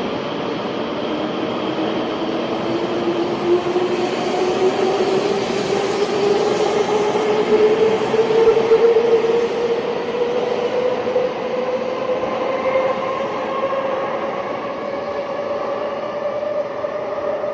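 High-speed train running, a steady rushing noise with a whine that climbs slowly in pitch, loudest about halfway through.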